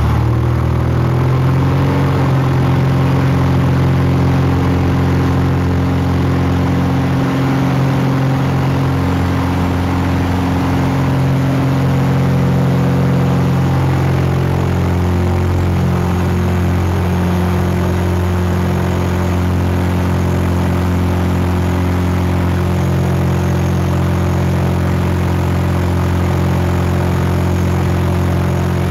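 Superior XP-360 four-cylinder aircraft engine and propeller of an RV-7A at full takeoff power, heard from inside the cockpit. The pitch rises in the first second as the throttle comes up, then holds steady and loud through the takeoff roll and climb.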